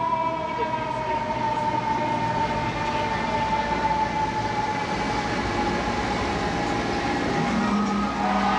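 Fire engine's siren sounding one long wailing tone whose pitch falls slowly and steadily, over the truck's low engine rumble. Near the end a second, higher siren tone comes in.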